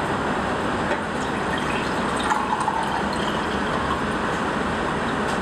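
Tap water pouring from a glass bottle into a glass beaker, filling it, over a steady background hiss.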